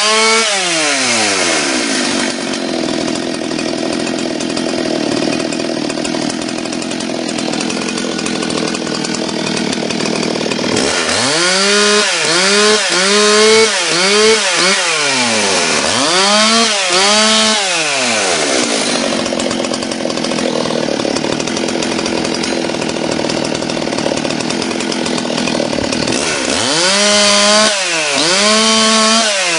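Chainsaw fitted with a Piranha carving tool running at high revs as it carves into a log. Several times (about a second in, twice around the middle and again near the end) the engine dips in pitch and climbs back as the throttle is eased off and squeezed again.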